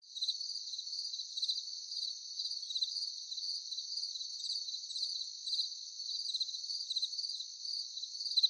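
Insects chirping: a steady high trill with a quick run of sharper chirps repeating through it, starting suddenly.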